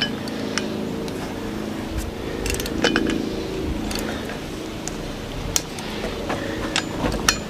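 Cornwell ratchet clicking in irregular strokes as bolts are snugged down into tough wood, with a few sharper metal clicks, over a steady low hum.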